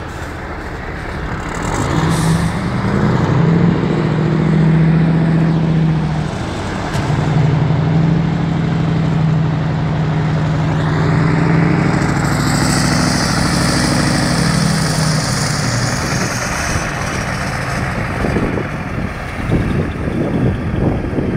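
Mercedes-Benz Actros truck's diesel engine pulling at low speed, its note swelling from about two seconds in and dipping briefly around six seconds. A long hiss of compressed air from the truck's air brakes comes in about twelve seconds in and lasts some four seconds.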